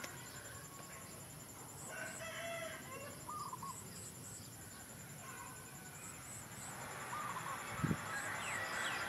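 A rooster crowing once, about two seconds in, with a few short bird chirps and a soft thump near the end.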